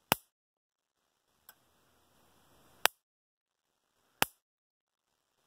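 International Super 98 solid-state electric fence charger firing sparks across a gap of about half an inch to three-quarter inch to a ground lead: sharp snapping cracks, one per output pulse, about every second and a half. Three are loud, and the one about a second and a half in is faint. The long spark shows a hard-hitting, high-voltage output.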